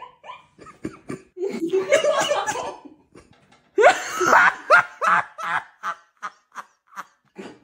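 Two women laughing hard, in several loud bursts with the loudest about four seconds in, trailing off into short, evenly spaced laughs.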